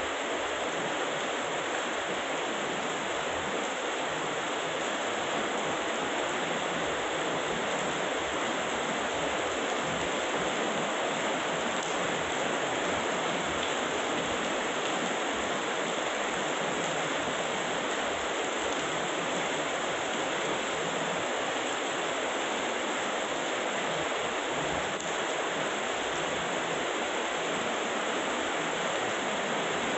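Heavy tropical rain falling steadily: a dense, even hiss with no thunder or other breaks.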